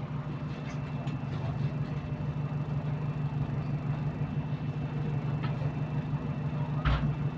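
Bus engine running with an exhaust leak: a steady low drone throughout. A single sharp knock about seven seconds in.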